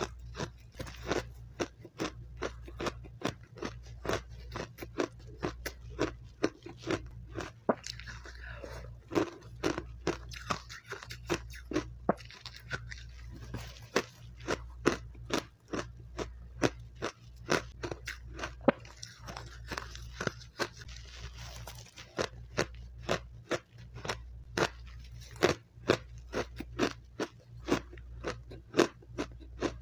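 Close-miked crunching and chewing of refrozen powdery matcha ice: a continuous run of crisp crunches, about two to three a second, with louder bites now and then, over a steady low hum.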